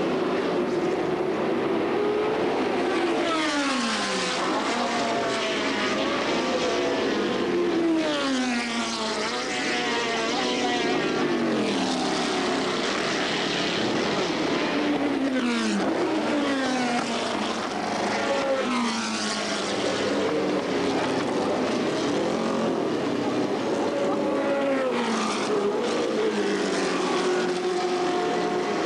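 Historic open sports-racing cars passing one after another at speed, their race engines loud, each engine note falling in pitch as the car goes by, several cars in a row.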